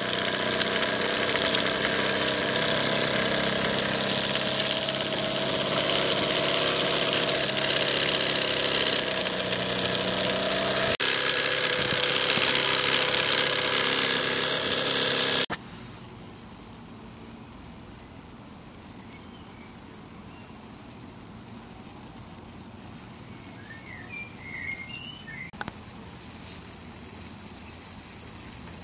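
Small model steam engine running fast, a loud steady mechanical buzz with a constant pitch. It cuts off suddenly about halfway through, leaving a low steady hiss with a few faint high chirps.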